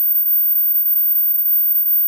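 A single steady, very high-pitched electronic tone, a synthesized dog-deterrent whistle sound meant to stop dogs barking.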